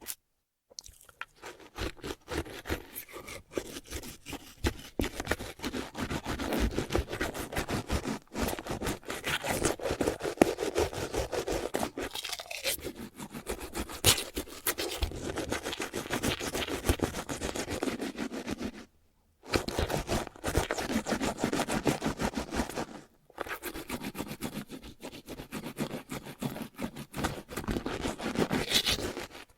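Manual toothbrush scrubbing teeth with the mouth open, a fast wet back-and-forth brushing that stops briefly twice, at about 19 and 23 seconds.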